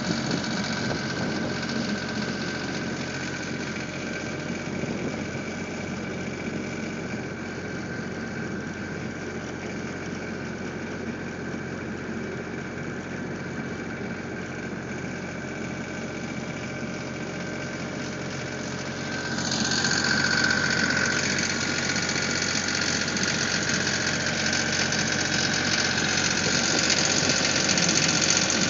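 Case skid steer's diesel engine running steadily, then revving up about two-thirds of the way through and staying louder.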